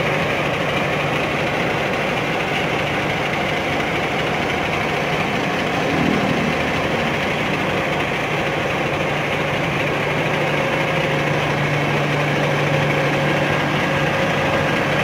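Volvo B11R double-decker coach's 11-litre six-cylinder diesel idling steadily, an even hum that does not change.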